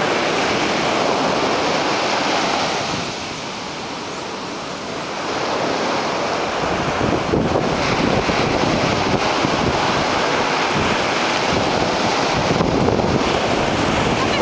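Steady surf on the beach mixed with wind buffeting the microphone; the noise eases for a couple of seconds about three seconds in, then comes back gustier.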